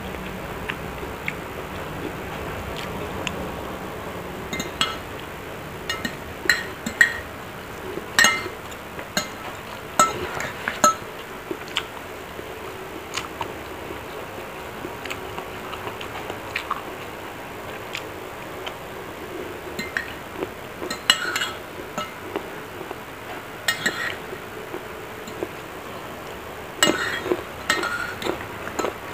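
Metal spoon and fork clinking and scraping against a ceramic plate while eating, in irregular clusters of sharp little clinks with a brief ring.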